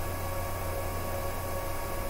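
Steady low hum with an even hiss and a few faint steady tones, with no distinct event: room tone.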